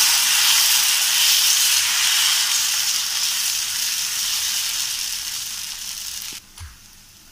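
Dosa batter sizzling and hissing on a hot tava as it is ladled on and spread in circles. The hiss slowly fades, then cuts off about six seconds in.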